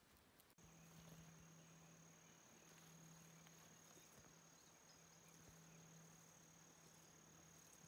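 Near silence, with a faint steady high-pitched whine and a faint low hum, both starting just over half a second in.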